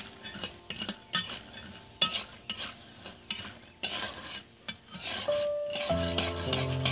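A metal spatula scrapes and clinks against an iron kadai as it stirs peanuts frying in a little oil, with a faint sizzle underneath. Near the end a steady hum of several low tones comes in.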